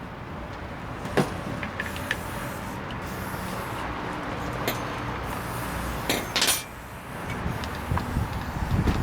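Scattered clicks and knocks of hard objects being handled, with a louder clatter about six seconds in, over a steady low rumble.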